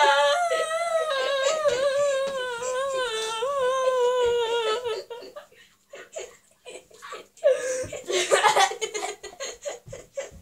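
A child's voice humming one long high note for about five seconds, wavering up and down in pitch, then after a short pause bursts of breathy, stifled laughter.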